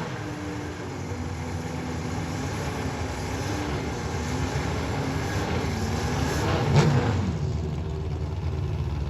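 Motorcycle engines running at low revs at a distance, a steady hum with slowly shifting pitch. About seven seconds in, one engine swells briefly louder as its pitch bends.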